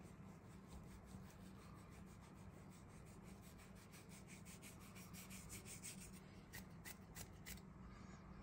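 Faint rubbing of flour being sprinkled by hand, fingers working it out over dough in a metal baking tray: quick light ticks, about seven a second at their thickest, ending in a few separate flicks.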